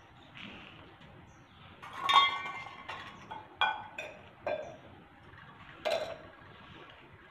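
Stainless steel utensils clinking as they are handled: small steel cups and a ladle knocking against steel pots. About five ringing clinks, the loudest about two seconds in.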